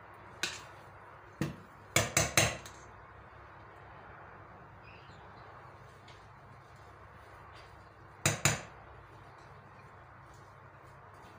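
Kitchen utensil knocking against mixing bowls, a stainless steel bowl and a glass one: single sharp taps about half a second and a second and a half in, a quick run of three or four taps around two seconds in, and two more near the end.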